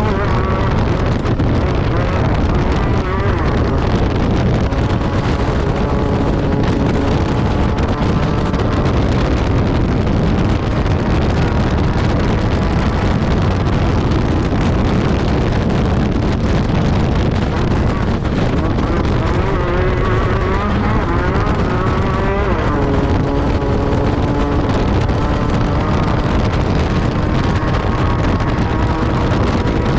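Class 10 desert race buggy's engine running hard under a heavy low rumble, its pitch rising and falling with throttle and gear changes. There is one clear climb and sudden drop about two-thirds of the way through.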